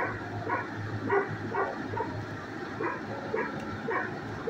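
Shelter dogs barking, short barks about twice a second, over a steady low hum.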